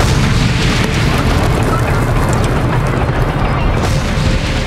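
Dubbed battle sound effects: a continuous din of explosions and low rumble, with background music underneath.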